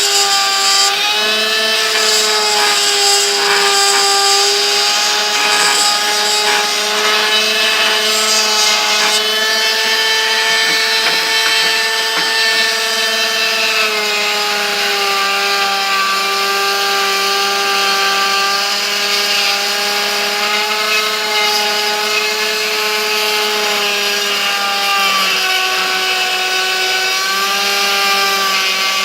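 High-speed rotary tool with a cutting bit running steadily while hollowing out insert recesses in a sword handle, a constant whine whose pitch sags briefly a few times as the bit bites and then recovers.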